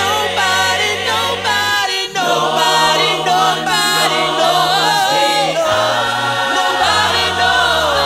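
Gospel choir singing in harmony behind a male lead singer, with low bass notes held steadily under the moving melody.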